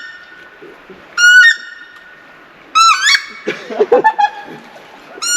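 Mallard duck call blown in loud, rasping quacks, each jumping up in pitch partway through as the call breaks under the pressure. A quick run of shorter, lower notes follows about three and a half seconds in, and another quack starts near the end.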